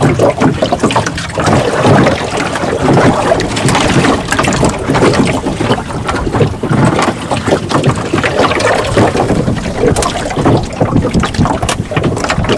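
Loud, continuous noise on a small fishing boat: wind buffeting the microphone over water, with scattered light knocks.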